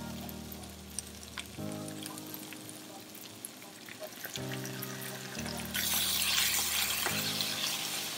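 Napa cabbage frying in a hot nonstick pan with light crackles, under background music of held chords. About six seconds in the sizzle surges into a loud hiss after aged vinegar is poured over the cabbage, then eases off as it is stirred with a wooden spatula.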